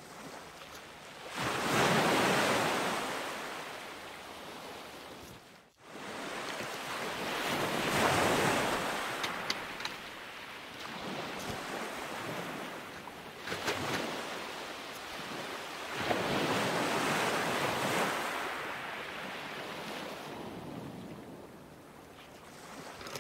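Ocean surf: waves rushing in and fading away in slow surges about every five seconds, with a brief dropout about six seconds in.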